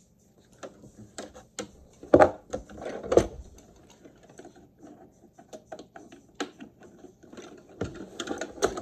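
Irregular plastic clicks and knocks from handling a robotic pool cleaner and hooking up its charging cable, with two louder thumps about two and three seconds in.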